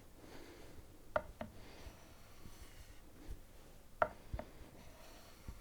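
Marples bevel-edge chisel being drawn across a 4000-grit Japanese waterstone in freehand honing strokes: faint rubbing, with two pairs of sharp clicks about three seconds apart.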